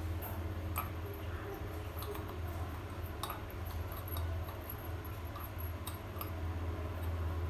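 A few faint metallic clicks as a chrome tap handle is pushed and turned onto the brass spindle of a concealed wall valve, over a steady low hum.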